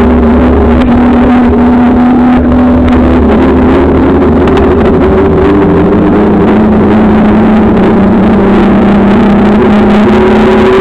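Loud, steady wind rush and rolling noise on a bicycle-mounted camera's microphone while riding along an asphalt road, with a droning hum that wavers slowly in pitch.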